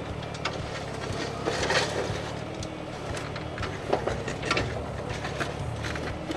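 Hyundai mini excavator's diesel engine running steadily while its bucket digs into rocky soil, with scattered knocks and scrapes of stones and dirt, loudest about two seconds and four seconds in.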